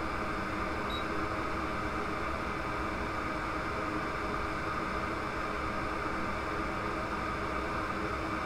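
Steady whir of a small electric fan, with a faint constant whine over an even noise.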